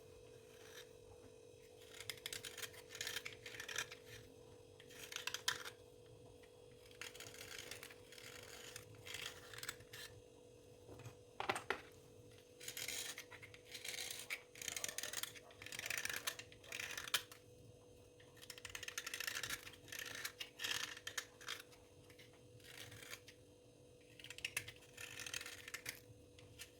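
Close-up dry scraping, in repeated short crackly strokes at an uneven pace, with a faint steady hum underneath.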